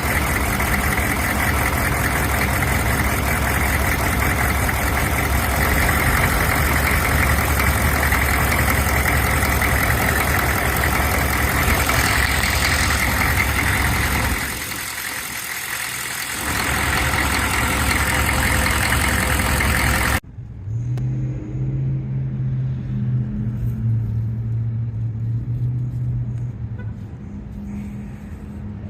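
Engine running with a knocking sound from faulty Bosch fuel injectors, heard loud and close. About 20 seconds in, the sound cuts abruptly to a much quieter, steady low engine hum.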